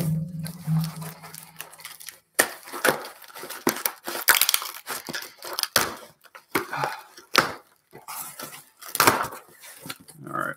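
A taped cardboard shipping box being torn open: packing tape ripping off in irregular rasps, with cardboard flaps scraping and crinkling as they are pulled apart.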